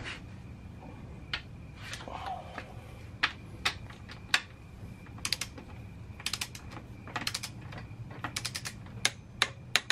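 Ratchet wrench clicking as it tightens a swingarm axle nut: a few single clicks at first, then short rapid runs of ratchet clicks from about halfway in as the handle is swung back and forth.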